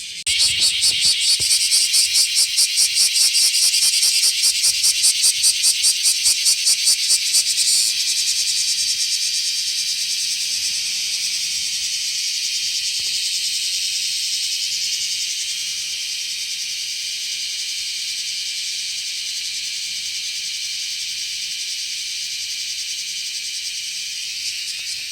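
Cicada singing: a high buzz that pulses about three times a second for roughly eight seconds, then runs on as a steady, unbroken buzz.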